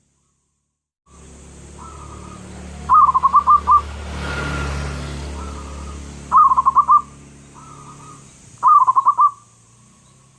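Zebra dove (perkutut) singing: three song phrases about three seconds apart, each a soft cooing lead-in followed by a quick run of about five loud rolling notes. A steady low hum and hiss lies underneath, starting about a second in, with a broad swell of noise in the middle.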